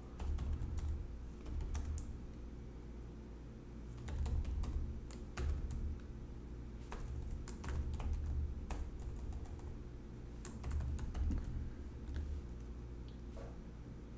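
Typing on a computer keyboard: irregular bursts of key clicks, each keystroke carrying a dull thud, with short pauses between bursts.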